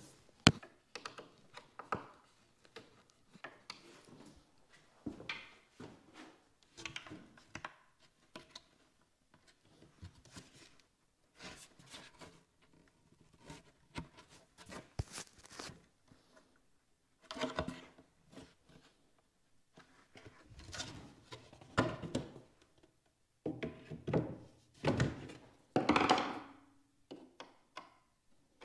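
Ready-to-assemble cabinet panels being fitted together by hand: irregular knocks and thunks of the side panels against the face frame, with scraping and handling noises between them, loudest in the second half.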